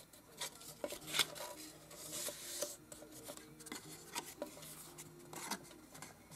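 Paper journal cover being creased along its spine by hand: soft rubbing and scraping with a few sharp taps and clicks scattered through.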